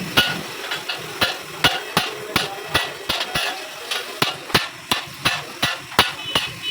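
A hammer striking metal in a steady rhythm, about three blows a second.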